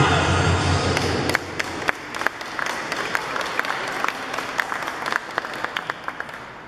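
Dance music stops about a second in. A small audience then applauds with scattered, separate claps, which thin out and stop near the end.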